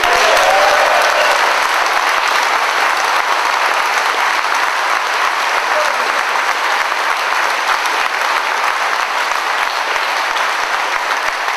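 Large crowd applauding, dense clapping that breaks out suddenly and keeps up steadily.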